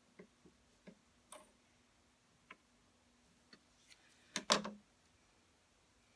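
Scissors snipping loose threads at a sewing machine: a few small, irregularly spaced clicks, then a louder knock and clatter about four and a half seconds in. A faint steady hum runs under the first part and stops about four seconds in.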